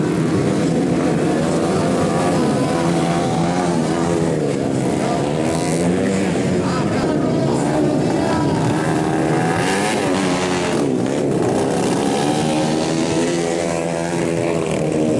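Several motocross bike engines revving, their pitches rising and falling and overlapping as the riders work the throttle over the muddy course.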